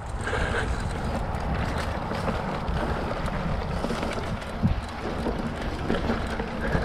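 Specialized Rockhopper mountain bike riding over a dirt trail: tyres rolling and the bike rattling over bumps, with a steady wind rumble on the microphone. A sharp knock about four and a half seconds in.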